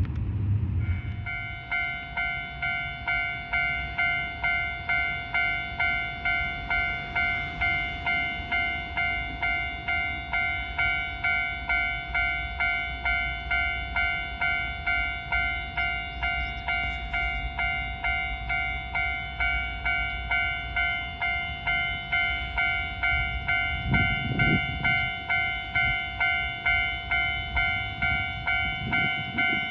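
Japanese level-crossing warning alarm ringing its electronic 'kan kan' bell in a steady, even rhythm, signalling an approaching train; it starts about a second in. A low rumble swells briefly twice in the later part.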